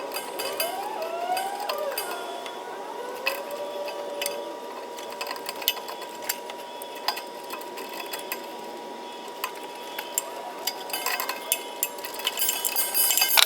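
Scattered clicks and light metallic taps from hand tools and stiff 10-gauge wire being worked into a metal electrical box, coming thicker near the end. A steady thin high hum runs underneath.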